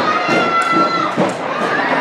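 Football crowd and sideline voices shouting and cheering, with one long high yell held for about a second at the start and another rising shout near the end.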